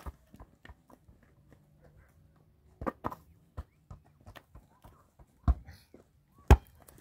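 Irregular knocks and thumps, the loudest a pair about three seconds in and two more near the end.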